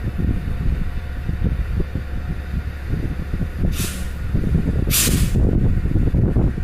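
Low rumble of a heavy vehicle, with two sharp hisses of compressed air from its air brakes: a short one a little past halfway and a longer, louder one about a second later.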